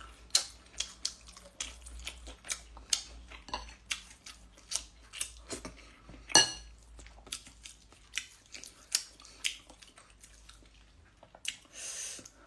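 Someone eating fish and rice by hand: a run of irregular small clicks and smacks from mouth, fingers and plate, with one louder click about six seconds in. Near the end comes a short sucking sound as she puts her fingers to her mouth.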